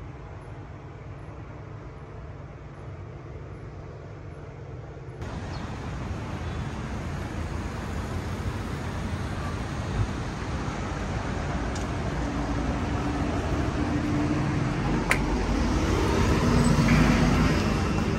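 A low hum, then from about five seconds in the steady noise of city street traffic, growing louder toward the end, with a couple of sharp clicks.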